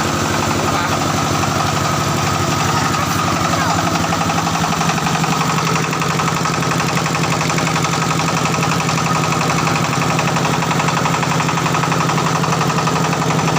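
Diesel engine running a mobile rice huller, a steady fast chugging with the machine's rattle; its low tone shifts slightly about five seconds in.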